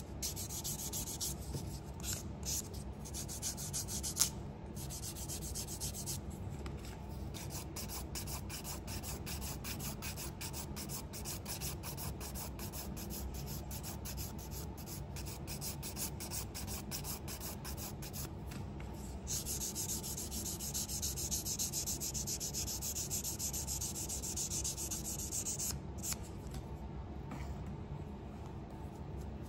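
Hand nail files, a sponge file and then a grit file, rubbing back and forth on a sculptured acrylic nail to smooth it: rapid rasping strokes, louder and brighter for a stretch in the second half, then fading near the end.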